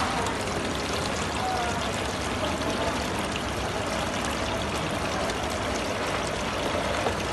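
Small decorative rock fountain, with water pouring steadily from a spout into its pool and splashing.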